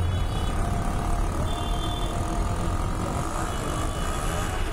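A bus on the road: a steady low engine rumble under continuous road noise.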